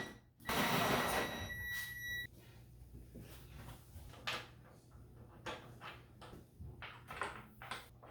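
Parts of a plastic playset being handled and fitted together: a steady high whine cuts off sharply about two seconds in, followed by scattered light clicks and knocks.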